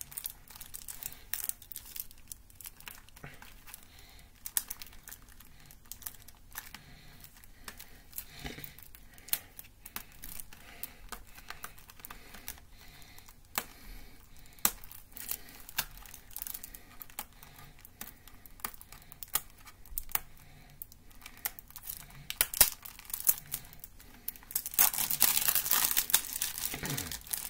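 Clear plastic shrink-wrap on a CD box set being picked at and peeled off by fingers: scattered small crinkles and clicks, then a longer, louder stretch of crinkling and tearing near the end.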